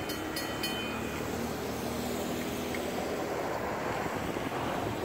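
Freight train's autorack cars rolling along the track and moving away. There are a few sharp wheel clicks in the first second, then a steady rolling rumble.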